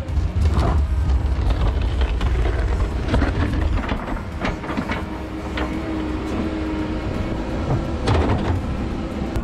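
Komatsu excavator running under load, its diesel engine rumbling while the steel bucket scrapes and scoops snow, with scattered knocks and scrapes of the bucket.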